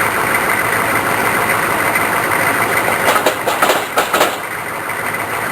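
Truck engine idling steadily, with a quick cluster of sharp knocks about three seconds in.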